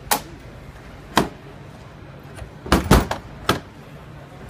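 Latches on a moulded-plastic UNISEG pallet container being snapped shut: a series of sharp separate snaps and knocks, the loudest pair about three seconds in.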